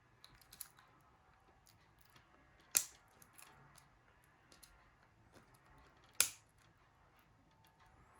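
Sharp plastic clicks and light ticks from a Nokia E71 handset being handled and pressed: two louder clicks about three and a half seconds apart, among fainter ticks.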